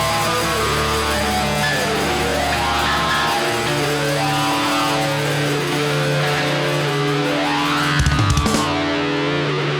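Heavy rock band playing live: distorted electric guitars hold long notes, several sliding up and down in pitch, with a cluster of loud hits about eight seconds in.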